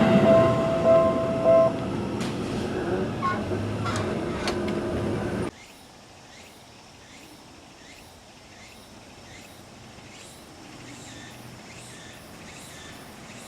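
A train passing over a level crossing, its running noise fading over a few seconds, with a steady tone that stops about two seconds in. Then an abrupt drop to a quiet background with faint chirps repeating about twice a second.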